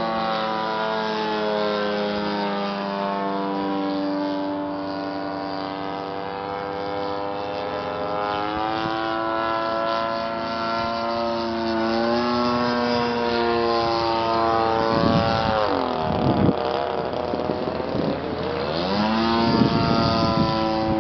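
Engine and propeller of a radio-controlled scale Gypsy Moth model plane in flight. The pitch wanders as it manoeuvres, then dips low and climbs back twice near the end.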